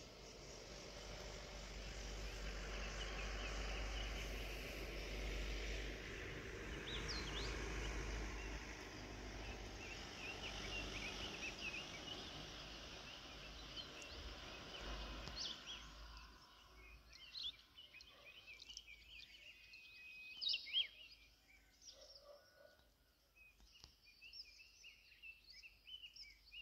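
Small birds chirping over a steady rushing background noise, which drops away about sixteen seconds in and leaves the chirps more distinct.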